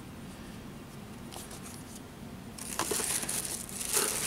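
Tissue paper crinkling and rustling as a hand rummages through a box, starting a little past halfway and carrying on with many small crackles.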